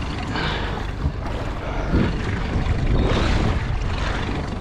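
Wind buffeting the microphone, with water sloshing and splashing against a small fishing boat's hull in open sea.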